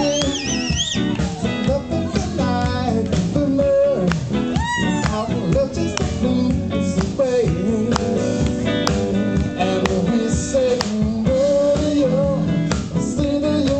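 A song playing: a voice singing over guitar and other instruments.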